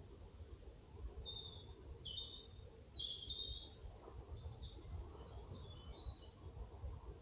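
A songbird calling: a run of short, high chirps and quick warbled notes, loudest about two and three seconds in and trailing off before the end, over a faint low rumble.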